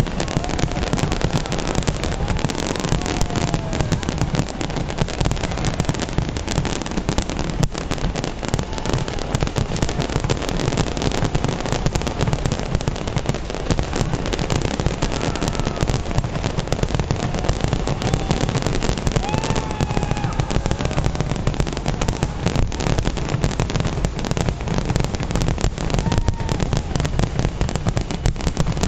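Firework display going off continuously: many bangs and crackles overlapping into a dense, unbroken barrage with a heavy low rumble beneath.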